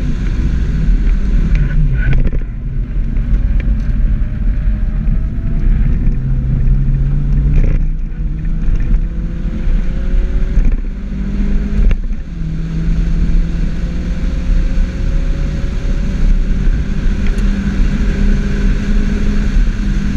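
Mini Cooper S R58's turbocharged four-cylinder engine at hard throttle, heard from inside the cabin. The revs climb in long steady runs, broken by several sharp drops as it changes gear.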